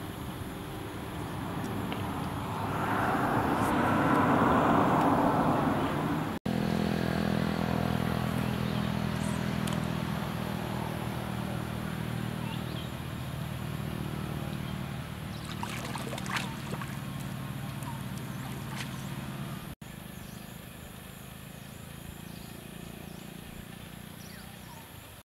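A rushing noise that swells for a few seconds, then a steady low motor hum for about thirteen seconds with a few faint clicks, ending abruptly in quieter outdoor background.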